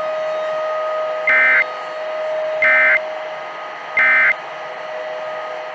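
Three short bursts of EAS end-of-message data tones (the warbling AFSK 'NNNN' code), about a second and a half apart, over steady radio static and a constant hum. They signal the end of the alert broadcast on a NOAA Weather Radio-style emergency message.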